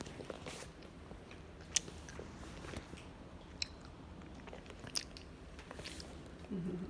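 Faint crinkling of plastic wrapping with a few sharp clicks, as a thin protective film is peeled off a small squishy toy.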